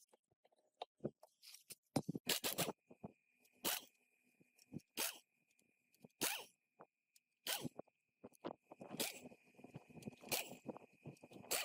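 Rhythmic hand scraping strokes, about one every second and a half, each short and hissy, with a faint steady high whine behind them from about three seconds in.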